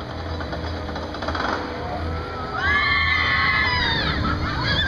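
Riders on a dive roller coaster screaming together as the train plunges down the vertical drop, the screams breaking out about two and a half seconds in and fading a second or so later. Under it a low steady hum.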